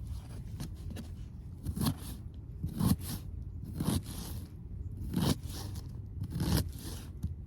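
A series of crunching scrapes, about one a second, over a low steady rumble.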